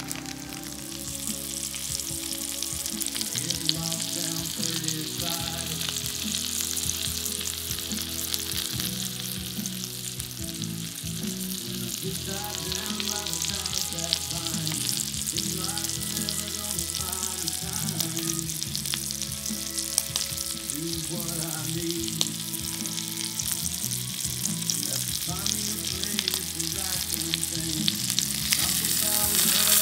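Butter sizzling and frying in a cast iron skillet, first around browning ricotta dumplings and then under a venison loin searing hot. The sizzle is steady and grows louder near the end.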